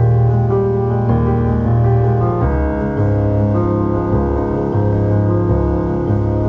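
Background music: sustained keyboard chords over a low bass line, the chords changing every second or so.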